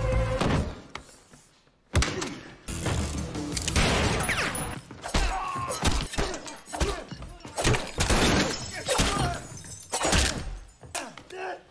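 Film fight-scene sound effects: a sudden crash about two seconds in starts a dense run of blows, thuds and breaking glass.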